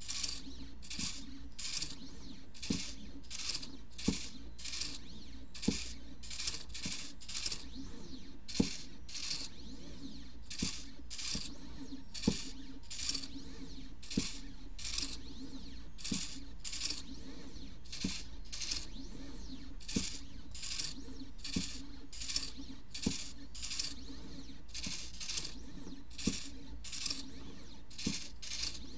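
midTbot ESP32 pen plotter at work: its motors whine in a long, even run of short bursts, about one and a half a second, as the pen moves stroke by stroke, with a sharp tick about every second and a half over a steady low hum.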